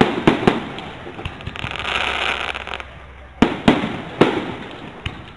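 Aerial fireworks going off: a few sharp bangs, then a couple of seconds of dense crackling, then another cluster of loud bangs about three and a half seconds in.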